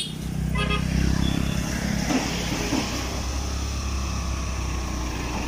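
Motorcycle engine running steadily with road and wind noise, heard from the pillion seat. A vehicle horn sounds briefly about half a second in.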